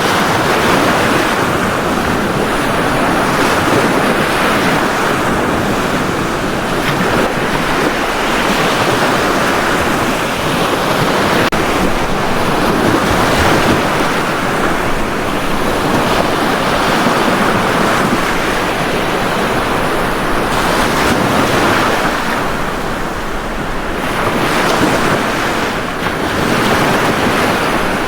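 Ocean surf breaking on a beach: a continuous rush of waves that swells and eases every few seconds.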